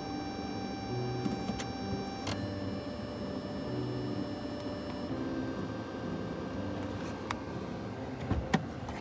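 Background music of sustained held notes, with a new chord or note every second or two, and a few sharp clicks near the end.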